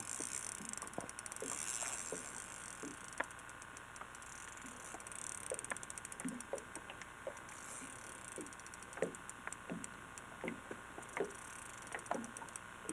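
Fishing reel clicking and ticking irregularly while a northern pike is played on the line, with a few faint knocks.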